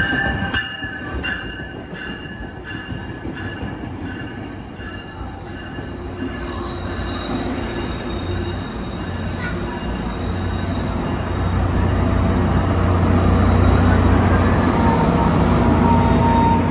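Passenger train wheels squealing on the rails, a high steady squeal that fades out about a second in. Then the train's MPI-built diesel locomotive engine runs with a low steady drone that grows louder through the second half.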